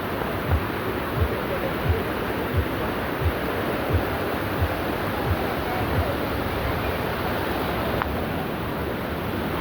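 Mountain stream rushing steadily over rocks, with regular low thumps of footsteps about one and a half a second that stop about six seconds in.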